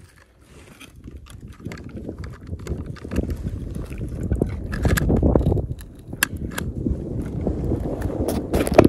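Wind rumbling on the microphone, rising and falling in gusts, with scattered clicks and knocks from a largemouth bass being handled over a kayak and net, and a sharp knock near the end.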